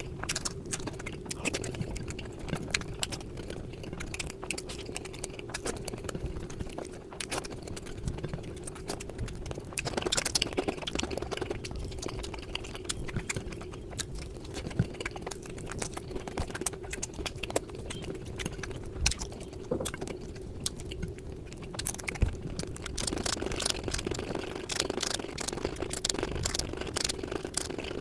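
A person eating close to the microphone: chewing with many small, quick mouth clicks, over a steady low hum.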